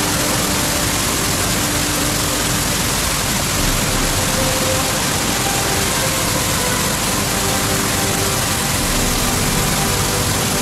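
Loud, steady rush of a fast glacial meltwater creek churning over rocks and boulders.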